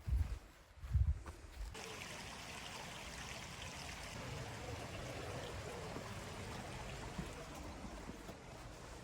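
A couple of low thumps in the first second or two, then a steady rush of running river water.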